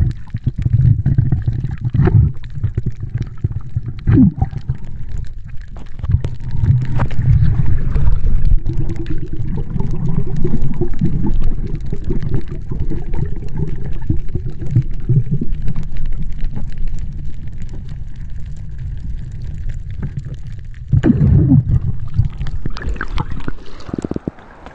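Muffled underwater water noise picked up by a camera held below the surface: a low, uneven rushing and sloshing with scattered knocks against the camera. It drops off sharply near the end as the camera breaks the surface.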